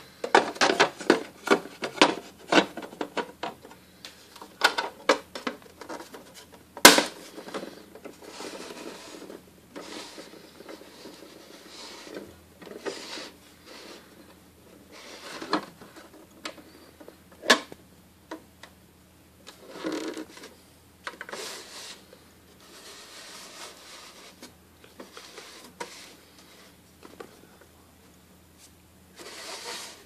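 Hard plastic parts of a vintage Osul toy dishwasher being handled: a quick run of clicks and taps at first, one sharp snap about seven seconds in, then scattered knocks with soft rubbing and scraping of plastic on plastic.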